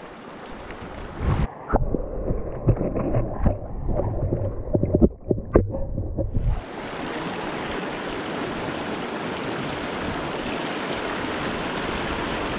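Camera microphone dipped under the water of a shallow rocky river: muffled underwater gurgling and sharp knocks with the high sounds gone, for about five seconds. It surfaces about six and a half seconds in, into the steady rush of river rapids.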